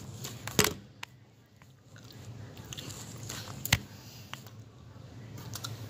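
Handling noise on a handheld phone's microphone: two sharp knocks about three seconds apart, with faint clicks and rustling between.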